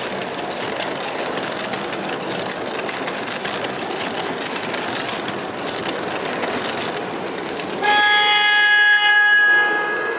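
MTH R40 subway model train running on its track, with a steady rumble and fine clicking, and its DCS onboard sound system sounding a subway horn for about two seconds near the end.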